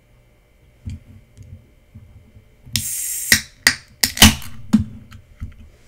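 Aluminium soda can being opened: a short hiss of escaping fizz about three seconds in, then a run of sharp clicks and cracks from the pull tab, the loudest just after four seconds, followed by a brief hiss.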